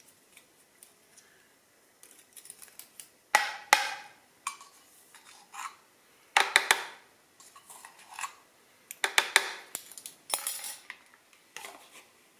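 Metal measuring spoon clinking and scraping in and against a can of baking powder as teaspoons are scooped and levelled, in short clusters of clinks several times over with quiet gaps between.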